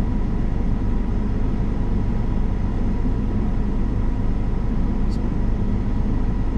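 Case combine running, heard from inside the cab: a steady low drone of engine and machinery with a faint steady whine over it.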